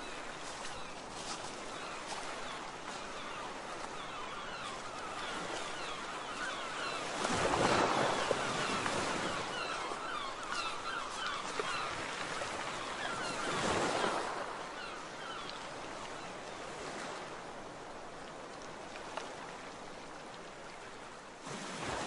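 Small waves lapping on a lake shore with wind, under many short waterbird calls. Two louder surges of water and wind come about eight seconds in and again near fourteen seconds.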